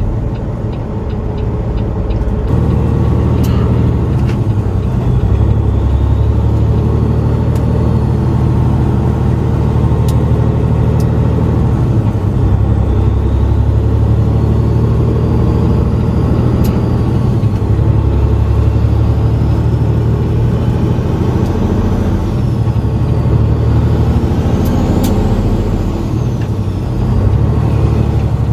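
Diesel engine of a long-nose semi truck running steadily while driving in slow traffic, heard from inside the cab with a deep, even drone.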